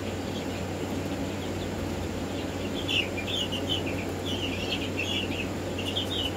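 Young Black Marans chicks peeping: a run of short, high chirps that starts about three seconds in, over a steady low hum.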